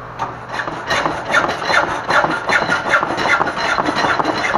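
Hand hacksaw cutting through the steel tubing of a go-kart frame, with quick rasping back-and-forth strokes, several a second.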